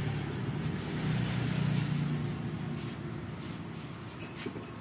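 A road vehicle's engine running, a low hum that fades slowly, with a few light knocks near the end.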